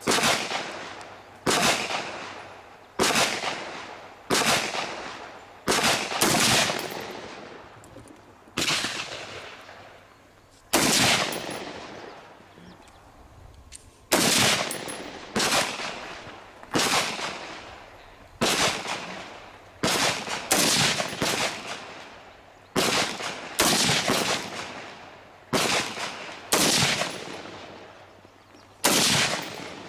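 A firearm fired in slow, deliberate single shots, about twenty in all, one every second or two, each shot followed by a short echoing decay. There is a pause of about three seconds near the middle.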